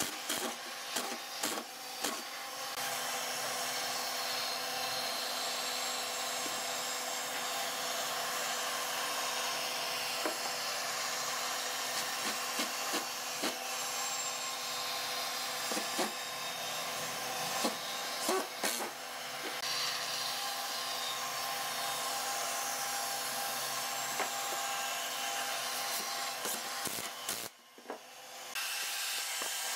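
Handheld electric power tool running steadily on a wooden table frame, a constant motor hum with scraping against the wood and scattered knocks, cutting out briefly near the end.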